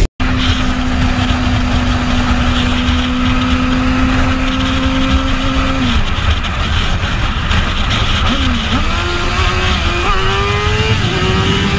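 Sport motorcycle at highway speed with heavy wind rush on the microphone. The engine holds a steady note, drops off about six seconds in, then climbs again in several stepped rises as the rider accelerates through the gears.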